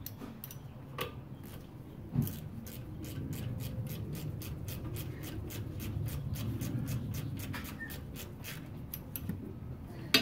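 Rapid, fairly even clicking of a ratchet running the caliper guide-pin bolts in, with some rubbing of tool and metal underneath.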